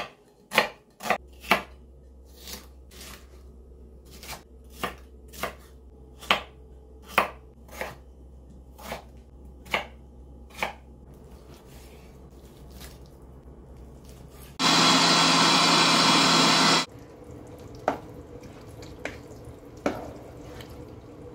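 Knife chopping on a cutting board: separate sharp knocks about a second apart, with a low steady hum underneath. About fifteen seconds in, a loud steady rushing noise lasts about two seconds and cuts off, then a few more knocks follow.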